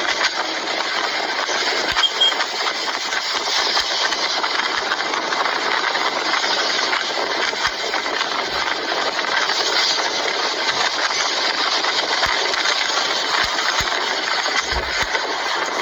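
An engine running steadily, a dense, even noise throughout.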